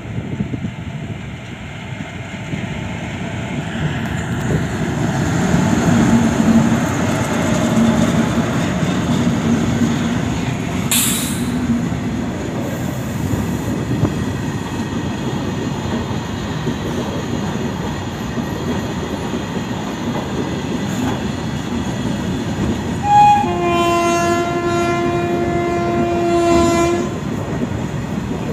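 Indian Railways electric locomotive and long freight train of open-top wagons rolling past close by, with a steady rumble and clatter of wheels on the rails. A brief sharp high-pitched burst comes about eleven seconds in. Near the end a train horn gives a short toot, then one steady chord for about three seconds.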